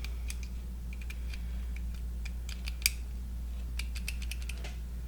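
Pink Workpro utility knife being handled during a blade change: a series of light clicks and snaps as the button is pushed and the blade holder is flipped and reseated, with one sharper click about halfway through.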